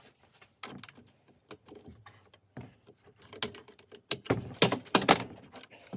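Irregular clicks and clattering knocks of a Makita DSS611 circular saw's parts being handled and fitted together during reassembly, with a denser, louder cluster of clatter about four to five seconds in.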